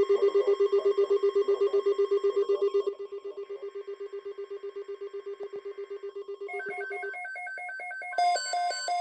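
Electronic alert tones. A rapidly pulsing, ring-like buzz drops in level about three seconds in and stops about seven seconds in, overlapped by a different pattern of higher, evenly repeating beeps that grows louder near the end.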